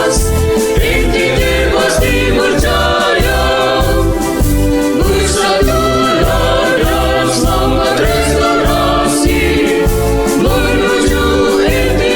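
Mixed choir of boys and girls singing in parts, over an accompaniment with a steady low beat of about two pulses a second.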